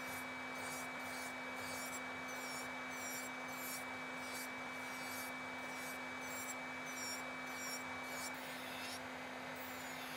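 Electric nail drill with a cylindrical bit running with a steady hum while it grinds down gel overlay and a nail tip, making repeated short scratching strokes against the nail. A thin high whine in the drill's sound drops out about eight seconds in.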